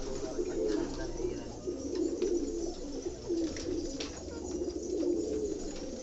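A flock of domestic pigeons cooing, many low coos overlapping into a continuous murmur, with a few short clicks among them.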